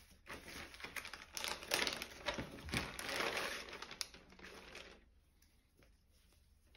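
Clear plastic polybag crinkling and rustling as a folded football shirt is pulled out of it, with small sharp crackles. The rustle dies away about five seconds in.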